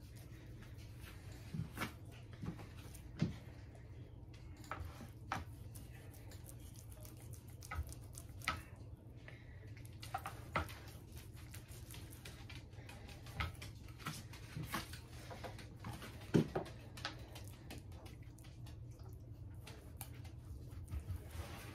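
Chef's knife trimming fat from a raw brisket on a plastic cutting board: irregular light clicks and knocks of the blade against the board, a second or so apart, with one louder knock near the end.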